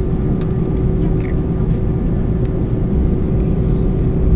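Airbus A320 cabin noise while taxiing: a steady low rumble from the engines at low taxi power, with a steady hum and a few faint ticks.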